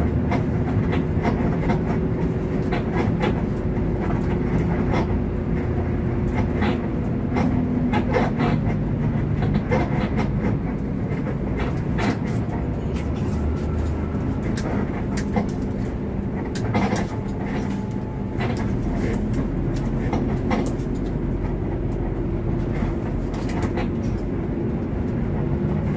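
Hino RK8 diesel coach under way: a steady engine and road rumble with frequent short clicks and rattles.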